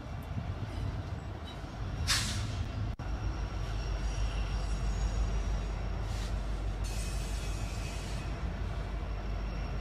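Intermodal freight train rolling over the elevated tracks with a steady low rumble of wheels on rail. Brief high-pitched wheel screeches come about two seconds in and again around six to eight seconds in.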